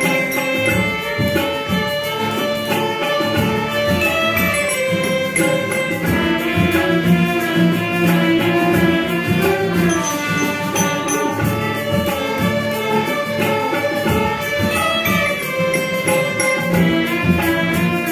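Live music from a small ensemble of violins, sitar, harmonium and hand drums, with a toy xylophone. Held melodic lines play over a steady beat.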